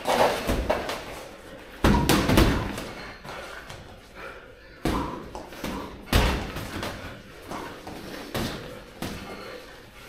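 Boxing sparring: irregular dull thuds and slaps of gloved punches landing, about eight in all, some in quick pairs.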